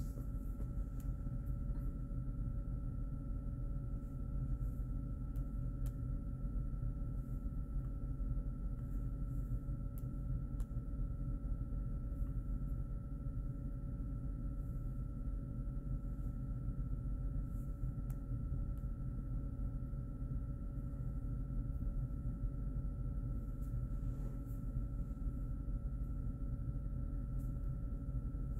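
Room tone: a steady low hum with two faint steady whining tones, unchanging throughout, with a few faint clicks.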